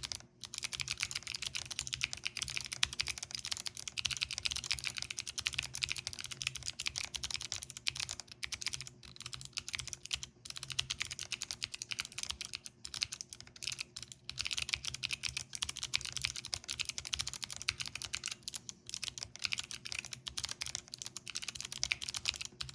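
Fast, continuous typing on a custom resin Corne split keyboard, gasket-mounted with foam dampening and switch pads, fitted with Cherry-profile PBT keycaps: a dense run of keystroke clicks with a few short pauses.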